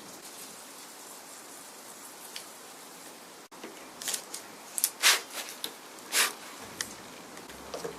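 Faint steady hiss, then after a cut a scatter of short clicks and scuffs of hand work on wooden drawer parts, the two loudest about five and six seconds in.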